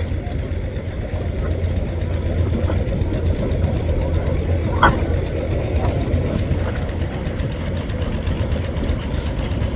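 Antique engine running steadily with a low rumble. A brief high-pitched squeak cuts through about five seconds in.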